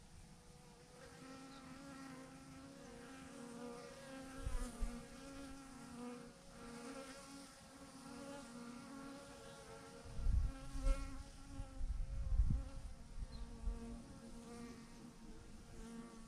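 A honeybee swarm buzzing: many bees flying around the clustered swarm, a steady hum whose pitch wavers as individual bees pass, building in about a second in. A few low rumbling thumps come through about four seconds in and again between ten and thirteen seconds.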